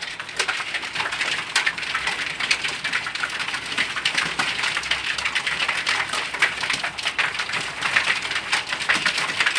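A flock of pigeons pecking feed off a cardboard-lined floor: a dense, steady run of many small, quick beak taps.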